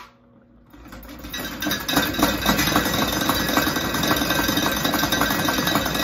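Cheap two-blade ceiling fan running at speed with a continuous fast rattle, building over the first two seconds and then holding steady.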